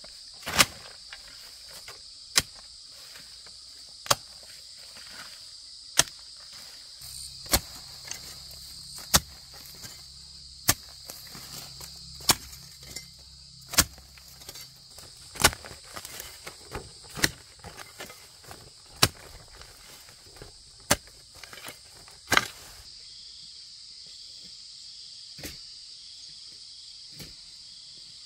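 Steady insect chorus, crossed by sharp, evenly spaced knocks about every second and a half to two seconds, which stop about 22 seconds in.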